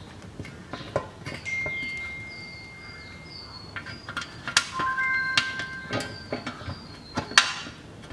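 Light metallic clicks and knocks as an automatic transmission oil pan is held up to the case and its bolts are started by hand, with one sharp click near the end. Several clear, steady whistle-like tones of unclear source sound over it from about a second and a half in.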